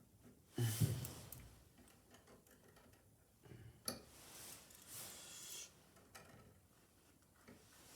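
Scattered small clicks, a sharp knock and scraping of hand tools working electrical wire onto a wall outlet, with a louder thump about half a second in.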